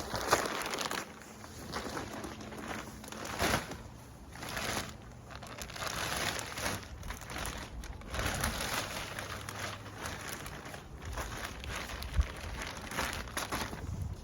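Plastic bag of soil crinkling and rustling in irregular bursts as the last of the soil is shaken out of it, with a few sharp clicks.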